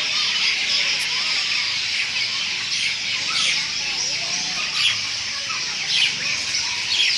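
A large flock of birds chirping and calling all at once, a dense, continuous chatter with sharper individual calls standing out every second or so.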